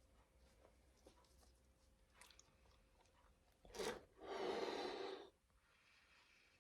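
Faint rubbery handling of a balloon, then a quick sharp breath in and a blow of air into the balloon lasting just over a second, about four seconds in.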